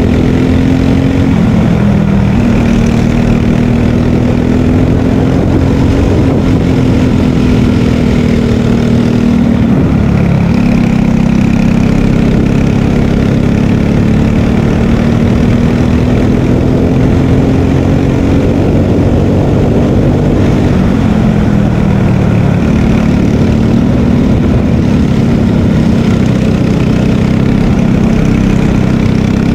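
Loud single-cylinder engine of a Margay Ignite K3 racing kart, heard onboard while lapping at speed. Its pitch drops sharply three times, a couple of seconds in, around ten seconds and around twenty seconds, as the driver lifts for corners, and climbs back up steadily on each straight.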